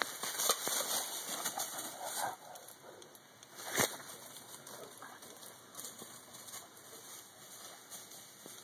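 Rustling and crackling of dry leaf litter and brush as a Saint Bernard and a person on foot move through woodland undergrowth. It is busiest in the first couple of seconds, with a sharp knock about four seconds in, then softer scattered rustles.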